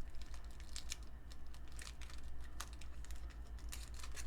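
Bowman Chrome trading cards handled and flipped through one by one: light clicks and rustles at irregular intervals, over a steady low hum.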